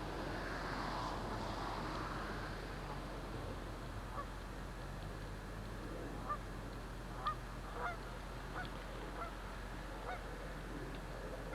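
Geese honking: a string of short calls, about ten, spread through the second half, over a steady rushing background that swells briefly at the start.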